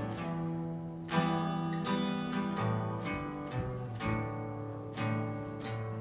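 Acoustic guitar strumming chords, with a fresh strum roughly once a second and the chords ringing on between strums.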